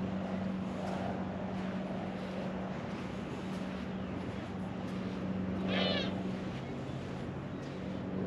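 A gull gives one short, wavering mewing call about six seconds in, over a steady low hum.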